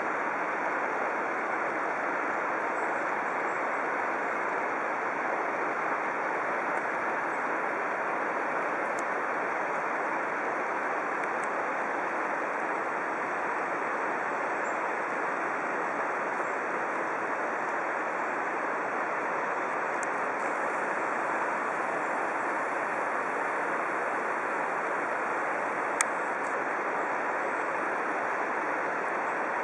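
Steady rush of the Ginga and Ryusei twin waterfalls heard from across the gorge: an even, unbroken hiss of falling water that neither swells nor fades. A single sharp click near the end.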